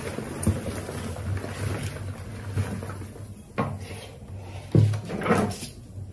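Rats scrabbling inside a plastic bucket, then the bucket knocked twice against the tiled floor, the second knock louder, as it is laid on its side, with a plastic sheet rustling.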